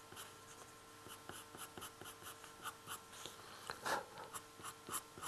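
Pastel pencil scratching on textured pastel paper in quick short strokes, faint, with a few louder strokes in the second half.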